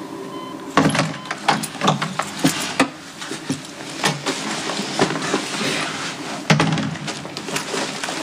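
A door being opened and handled, with a run of clicks, knocks and rustling, and a sharper knock about six and a half seconds in.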